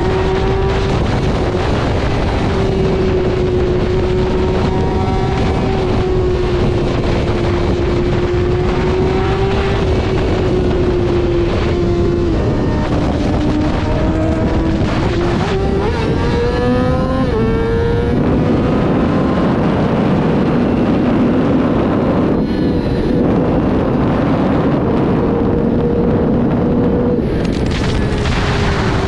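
Yamaha R6 inline-four sport-bike engine running under way, with wind noise on the microphone. The engine pitch holds steady, dips a little under halfway through, then climbs and settles higher as the revs change.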